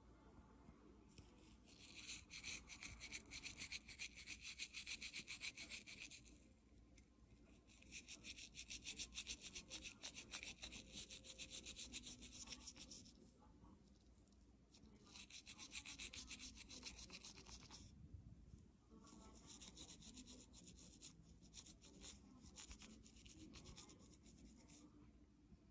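A soft toothbrush scrubbing a pig's teeth: faint, fast back-and-forth brushing in four spells of a few seconds each, with short pauses between.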